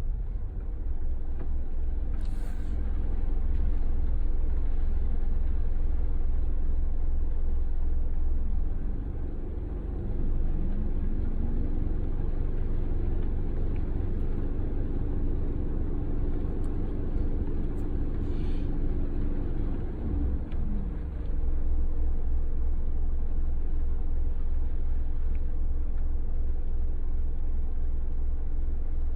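Car being driven: a steady low rumble of engine and road noise. About ten seconds in an engine tone rises, holds steady, then falls away again around twenty seconds in.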